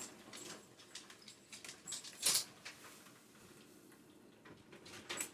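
Dogs' claws clicking and pattering on a hard floor, with one louder brief scrape about two seconds in.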